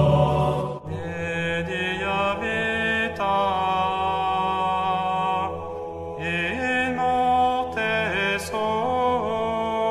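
A slow chanted hymn, sung in long held notes that step up and down in pitch. A louder, deeper sound cuts off abruptly about a second in, just before the chant.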